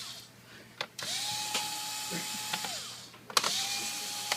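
Small cordless drill backing screws out of a laptop's bottom case. It spins up twice with a click at each start; the first run holds a steady whine for about a second and a half and then winds down, and the second starts near the end.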